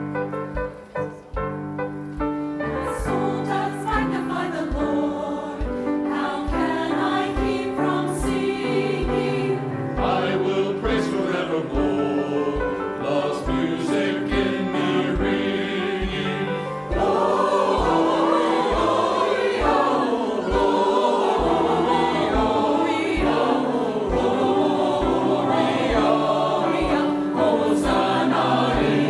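Church worship music: a group of voices singing with piano accompaniment over a steady low beat. For the first couple of seconds the piano plays alone, and the singing grows louder about 17 seconds in.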